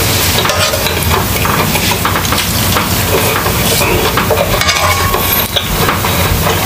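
Close-miked chewing and wet mouth sounds of a person eating, crackling on without pause, with a spoon clinking and scraping food from a pot near the end.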